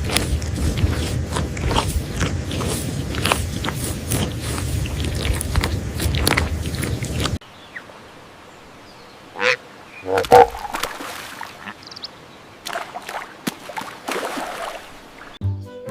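Animal calls: a dense, noisy mix of calls for about seven seconds, then it drops suddenly to a few scattered single calls.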